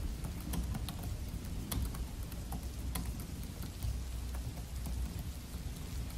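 Typing on a Dell laptop keyboard: soft, irregular key clicks over steady rain.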